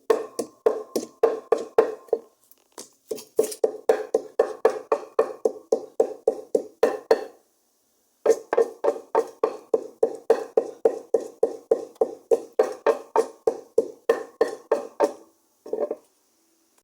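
Rapid, steady knocking of about five strikes a second, in three runs separated by short pauses, with a couple of final knocks near the end.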